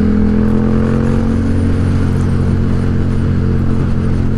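Yamaha XSR700 motorcycle's parallel-twin engine running at a steady cruise while riding, its note easing slightly at first and then holding even.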